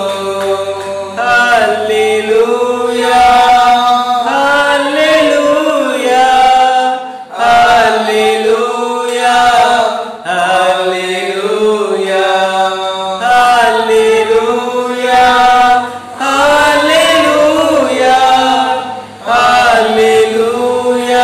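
A man singing a Telugu Christian worship song solo, in long drawn-out phrases with short breaks for breath every few seconds.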